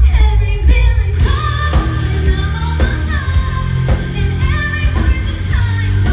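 Live rock band: a woman sings a melody into a microphone over electric guitar, bass guitar and drums.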